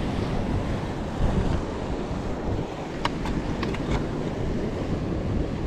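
Strong wind buffeting the microphone over the wash of sea waves on the shore, with a few light clicks around the middle.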